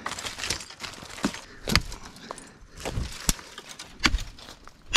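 Leafy green branches rustling and twigs snapping as sticks are worked free from a bush, with several sharp cracks spread through the moment.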